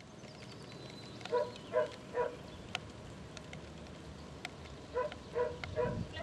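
A dog barking: three short barks about a second in, then another run of barks near the end.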